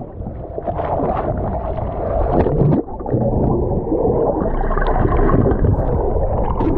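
Muffled rushing and gurgling of seawater heard through an action camera submerged in its housing, with little high-pitched sound.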